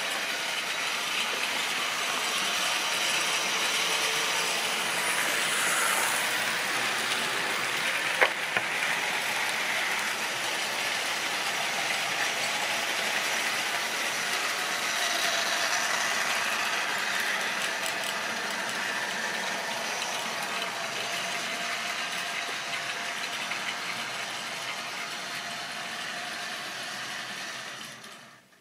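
Long train of OO-gauge model railway wagons running along the track: a steady rattling clatter of small wheels on model rail, with one sharp click about a third of the way in. The sound fades and cuts off near the end.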